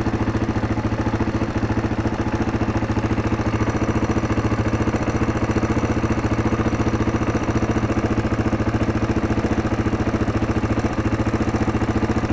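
1999 Yamaha Serow's single-cylinder air-cooled four-stroke engine idling steadily, with the ticking of its valvetrain: valve noise that the mechanic takes as a sign the valve clearances only need adjusting.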